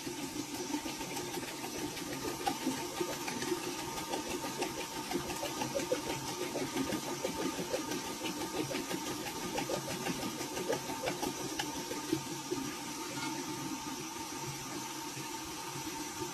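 A dog drinking from a running bidet tap: quick, continuous lapping with the steady splash of the water stream.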